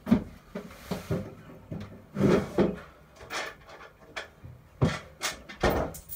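A series of irregular knocks, clicks and rubbing sounds, the loudest a little over two seconds in and twice near the end.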